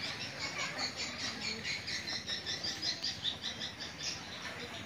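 High-pitched chirping of small animals, a quick, steady run of short calls.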